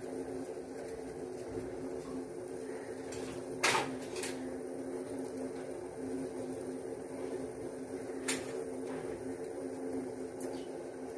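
A saucepan of avaram flower tea simmering on a low gas flame: a steady low hum with a few short clicks, the sharpest about four seconds in and again near eight seconds.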